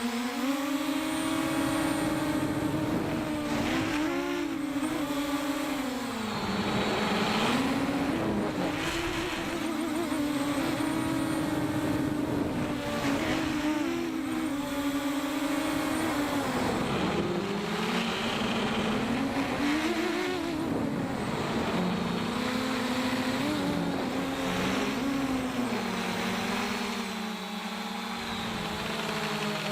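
JJRC X1 quadcopter's brushless motors and propellers whining, heard through the camera mounted on the drone, with the pitch rising and falling again and again as the throttle changes.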